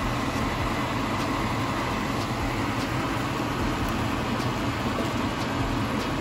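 Kitchen exhaust fan running steadily, with a few faint light taps as chopped mushrooms are tipped from a bowl into a pan.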